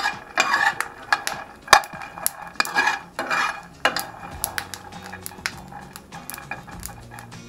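A metal spoon scraping and clinking against a frying pan as it stirs peanuts roasting in it, a quick run of scrapes and knocks that gets lighter after about four seconds.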